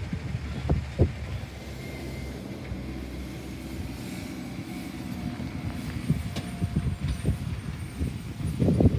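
Diesel engine of a Freightliner M2 garbage truck running as it drives off, a steady low rumble, with a couple of sharp thumps about a second in and more low thumping near the end.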